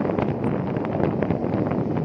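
Wind buffeting the microphone while travelling forward, over a steady vehicle running noise.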